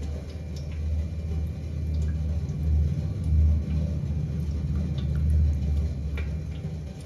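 Water being poured from a steel cup through a small plastic funnel into a stainless-steel milk cooker's water chamber, under a loud, uneven low rumble, with a few faint clicks.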